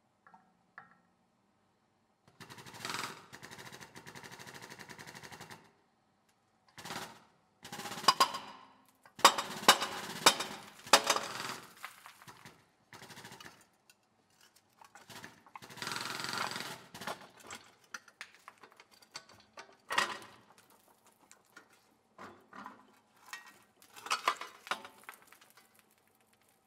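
Seized, rusted wheel bearing being pressed out of the steering knuckle by a hydraulic hub puller. A steady rattle near the start gives way to a string of sharp, loud cracks as the bearing housing breaks loose: several around the middle and one more about two-thirds of the way through, with scraping, creaking stretches between.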